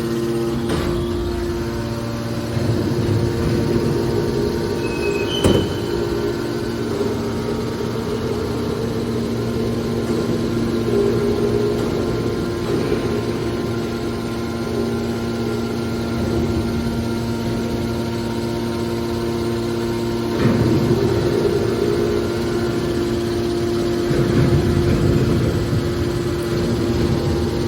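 A hydraulic scrap-metal baler running, with the steady hum of its motor and pump. Louder, rougher stretches come and go, and there is a single sharp knock about five seconds in.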